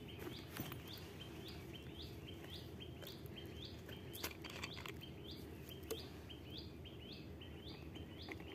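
A bird calling over and over with a short rising chirp, about two to three times a second, over a steady low background noise. A few sharp clicks of handling come through now and then.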